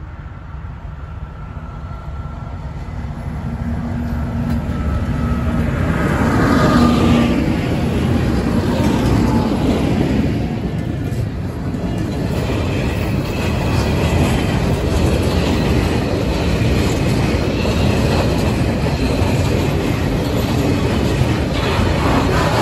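Freight train passing close by: the locomotive's engine note grows louder over the first six seconds and drops in pitch as it goes past. A steady rumble of the wagons rolling over the rails follows.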